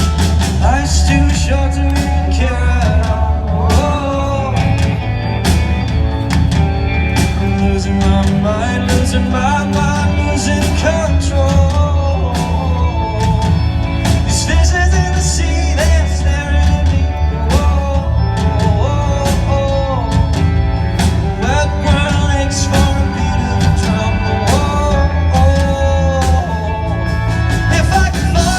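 Live band playing a rock song with a male lead vocal, recorded from the audience at a concert: loud and bass-heavy, with steady drum hits under the singing.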